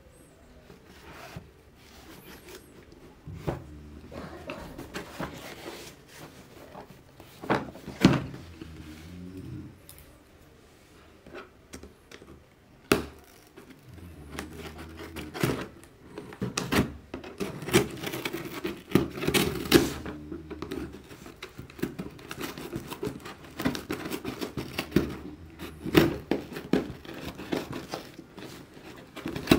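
Scissors cutting and slitting packing tape on a cardboard shipping box, with the tape tearing and the box knocking and thumping as it is handled. The cutting grows busier and louder about halfway through.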